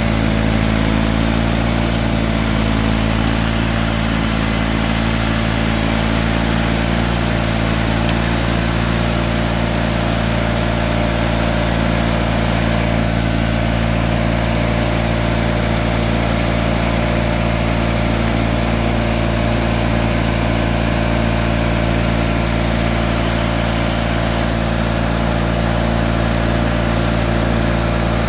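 John Deere 318 garden tractor's two-cylinder opposed Onan engine running steadily, powering a front-mounted snowblower as it throws snow.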